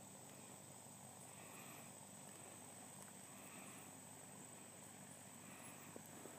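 Near-silent outdoor ambience with a faint insect call, a short buzz repeating about every two seconds. Two faint ticks near the end.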